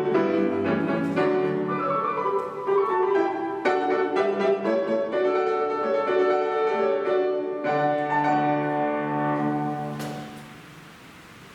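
Solo piano playing quick running figures, then closing on sustained final chords that die away about ten seconds in, leaving only faint room hiss.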